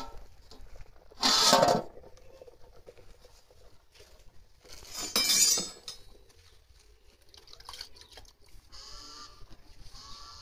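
Aluminium pot lid clattering against a boiling cooking pot, in two loud bursts about four seconds apart. A short call is heard near the end.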